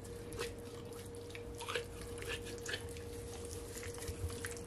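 Hands rubbing and squeezing seasoning into the skin of a raw whole chicken: faint, irregular wet squishing sounds.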